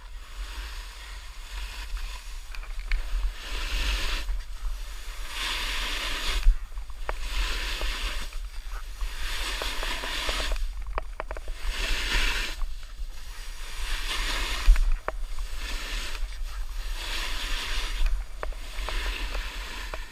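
Snowboard riding through slushy spring snow: the edge scraping the snow makes a hiss that swells with each turn, about every two seconds, over a low wind rumble on the camera microphone.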